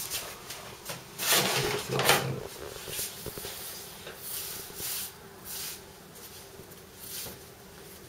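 Hands rubbing and pressing a floured dough log on a wooden board: a series of soft brushing and scraping strokes, the strongest about one and two seconds in.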